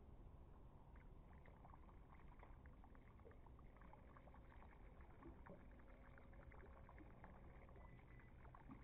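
Near silence: faint lapping and small ticks of water against the hull of a drifting boat.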